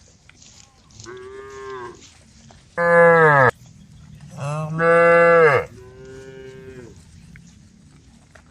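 Cows mooing: four drawn-out calls of about a second each. The loudest two are lower-pitched and come about three and five seconds in, between two quieter, higher-pitched calls.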